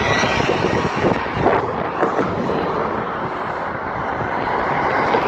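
Steady noise of road traffic going by, with wind buffeting the microphone.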